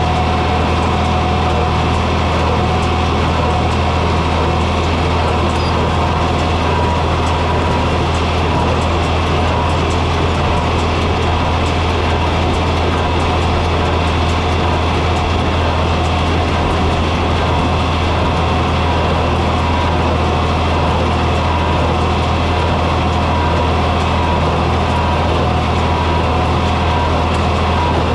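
John Deere 4020 tractor's six-cylinder engine running steadily with a low drone.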